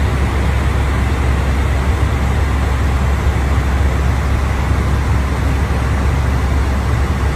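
Steady rushing noise with a constant low hum inside an airliner cockpit in cruise flight.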